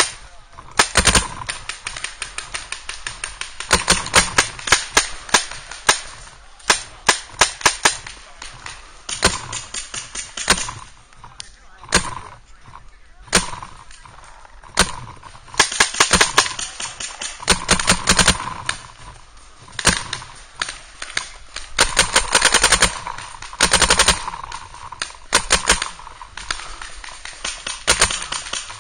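Paintball markers firing in rapid strings of shots, burst after burst with short gaps, some strings close and loud and others farther off.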